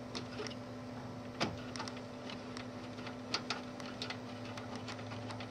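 Screwdriver unscrewing a DVI connector's threaded post: scattered small metal clicks and ticks at an uneven pace over a steady low hum, with the sharpest click about a second and a half in.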